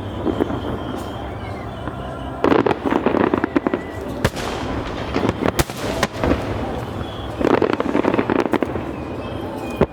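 Aerial fireworks bursting, with rapid crackling volleys of many pops. The densest clusters come about two and a half seconds in, around six seconds, and again near the end.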